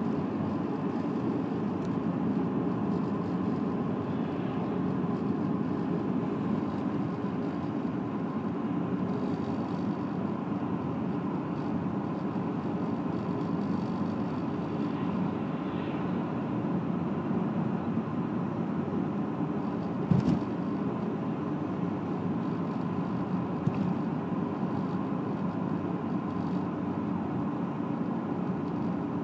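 Steady road and engine noise of a car driving along at speed, heard from inside the cabin. A single sharp knock comes about twenty seconds in, and a smaller one a few seconds later.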